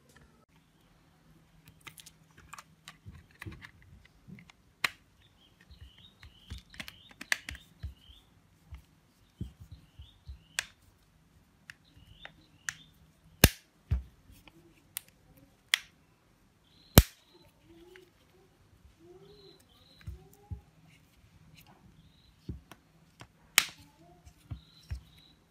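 Irregular sharp clicks and taps from a smartphone and its small parts being handled by hand, with two louder snaps about thirteen and seventeen seconds in.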